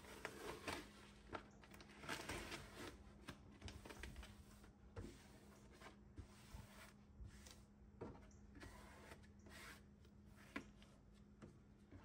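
Faint rustling and rubbing of adhesive paper drawer liner being smoothed down by hand against the bottom of a wooden drawer, in short irregular strokes.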